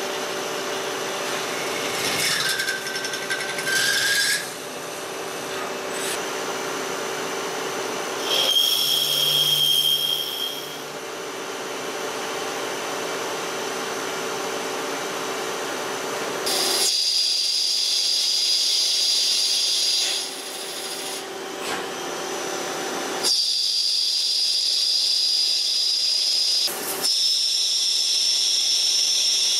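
Hwacheon Hi-TECH 230AL CNC lathe cutting a titanium bolt. A steady machine hum runs under short, pitched whines of the tool in the metal during drilling and chamfering. About 17 seconds in, a louder high whine with hiss takes over during outside-diameter roughing, breaking off for a few seconds in the middle.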